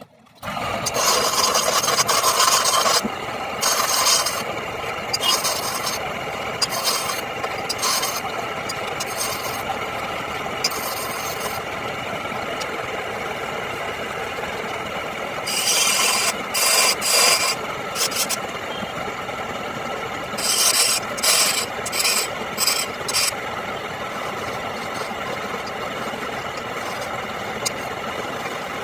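Wood-turning lathe running steadily, with a cutting tool rasping against the spinning wood in repeated bursts. The cutting is heaviest in the first few seconds and again in two spells in the middle, then only the lathe's steady hum remains.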